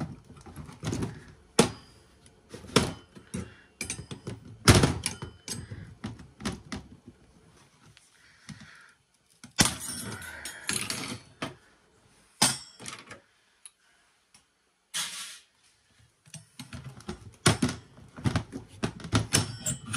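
Irregular clicks, knocks and clatter of a screwdriver prying small aluminum heat sinks and parts off a circuit board, with a pause of a few seconds after the middle and a quick run of clicks near the end.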